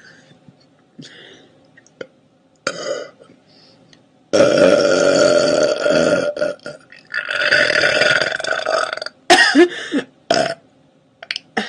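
A girl burping: two long, loud burps of about two seconds each, starting about four and seven seconds in, followed by a few short burps near the end.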